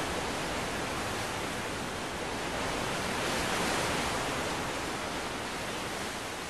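Tornado wind: a steady rushing noise that swells slightly about halfway through and eases near the end.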